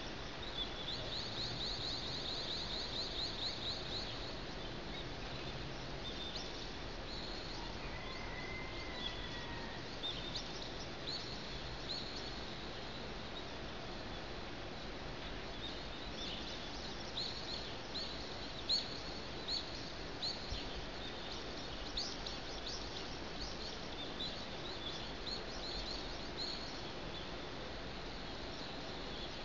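Small birds chirping and trilling at dawn over steady city background noise, with a fast run of repeated notes in the first few seconds.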